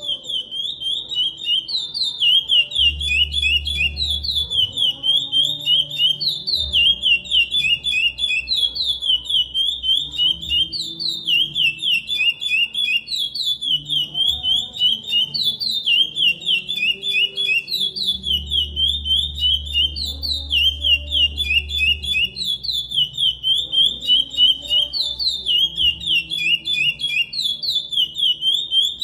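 Chestnut-bellied seed finch (curió) singing the Paracambi song type: a clear whistled phrase of rapid, sharply falling notes, repeated over and over about every two seconds.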